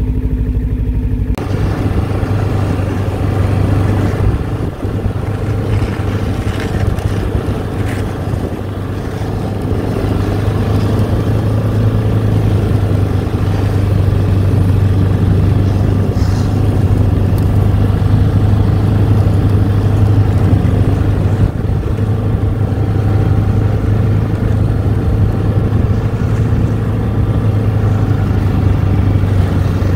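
Ski-Doo snowmobile engine running steadily at cruising speed on a snow trail, with an even hum that changes little in pitch.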